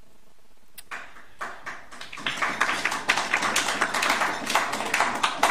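Audience applauding: a few scattered claps about a second in, swelling into dense, steady applause that thins out near the end.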